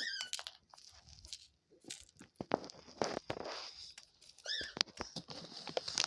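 Pet dove digging and pecking through seed in her dish, flicking seed out: a quick run of sharp pecking clicks and rattling, scattering seed. Two short high squeaks, near the start and about four and a half seconds in.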